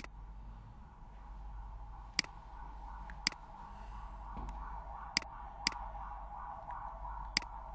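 Computer mouse clicks: six sharp single clicks spaced unevenly, over a faint wavering background tone.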